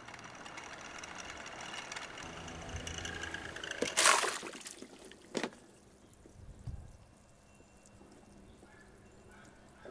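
An HPM exhaust fan plunged into a bucket of water: a loud splash about four seconds in, a sharp knock a second or so later, then the water quietly settling.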